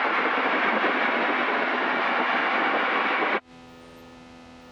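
Steady rush of light-aircraft engine and wind noise picked up over the cockpit intercom. About three and a half seconds in it cuts off abruptly, leaving only a faint steady electrical buzz.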